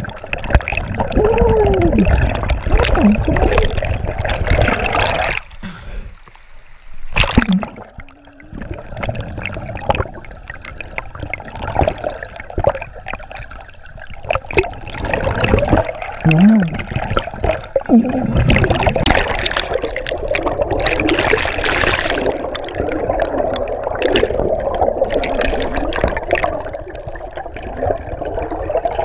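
Muffled rushing and gurgling of river current, heard by a camera held underwater, with a sharp knock about seven seconds in and a few short warbling sounds.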